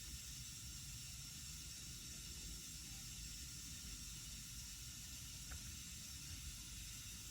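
Steady faint hiss with a low rumble underneath and one or two faint ticks.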